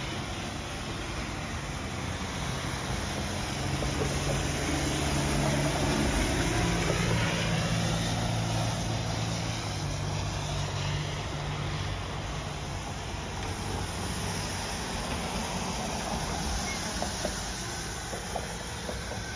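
Steady road-vehicle noise: a rushing hiss with a low engine hum that swells a few seconds in and then eases.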